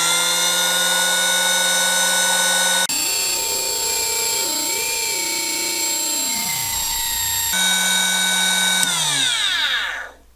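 Dumore 8226 sensitive drill press's brushed motor running at high speed with a steady, many-pitched whine. Near the middle it runs unevenly, its pitch wavering up and down and then sagging. It then runs steady again and winds down to a stop near the end, with the pitch falling. The uneven running is the fault the owner is chasing through the motor's carbon brushes and their wear against the commutator.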